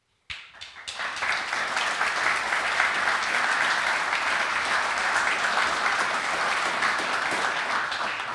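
Audience applauding: a few scattered claps about a third of a second in, quickly swelling into steady, dense applause that fades away at the end.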